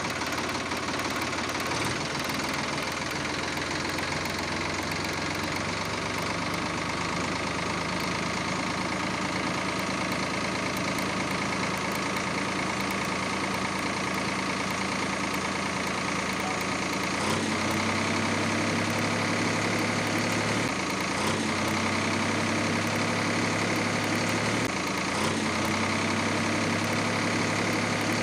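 Engine running steadily, a tractor-like idle. About two-thirds of the way in, a deeper drone joins; it breaks off and resumes every three to four seconds.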